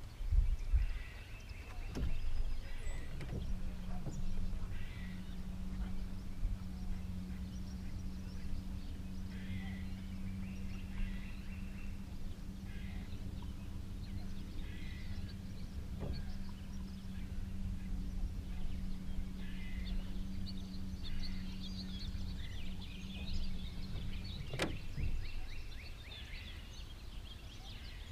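Birds calling over and over, with a steady low hum that comes in a few seconds in and stops a few seconds before the end. A few sharp clicks are heard, one of them near the end.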